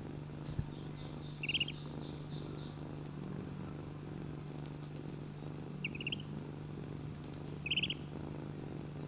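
Kitten purring steadily, with a duckling peeping in short bursts of a few quick high chirps: about a second and a half in, again around six seconds, and once more near the end.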